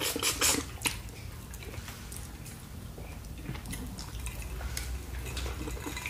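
Close-up eating sounds: wet lip smacks and finger-licking clicks, bunched in the first second, then quieter chewing.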